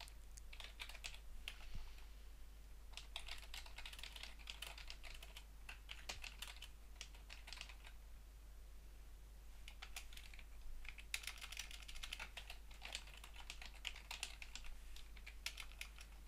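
Typing on a computer keyboard: bursts of rapid key clicks, with a pause of a few seconds around the middle.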